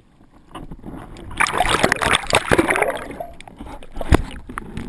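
Underwater water noise from a diver moving with a camera, thick with small clicks. It swells about a second in, fades again, and a single sharp knock comes near the end.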